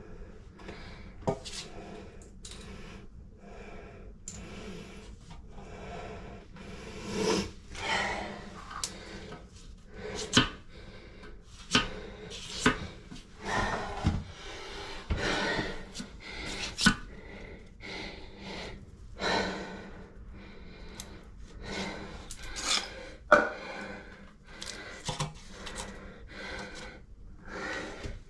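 Irregular knocks, clicks and scraping as shims are pushed and tapped under the base of a toilet to level it on uneven tile, with a man's heavy breathing between them.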